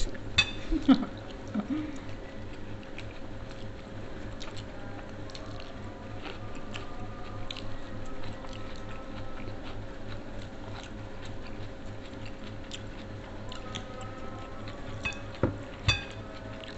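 Eating sounds: chewing and soft mouth noises as rice and side dishes are eaten by hand, with small clicks of fingers and food against plates. A faint steady hum runs underneath, and a few sharper clinks come near the end.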